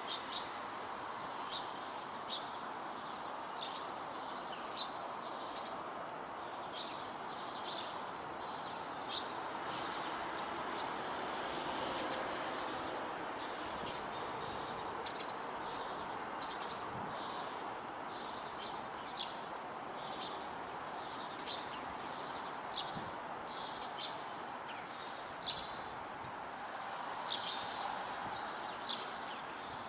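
Eurasian tree sparrows chirping: short, sharp chirps repeating irregularly about once a second, over a steady background rush.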